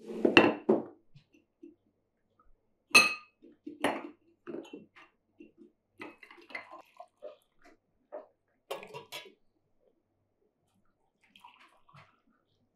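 Porcelain plates and glass tea cups being set down on a table: a string of clinks and knocks, the loudest a sharp ringing clink about three seconds in, thinning out after about nine seconds. Tea is poured from a teapot into the glasses.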